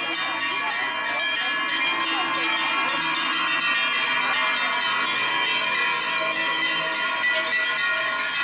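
Large cowbells hung on cows' necks, clanging continuously as the herd walks along. Many bells ring over one another in a dense, steady metallic din.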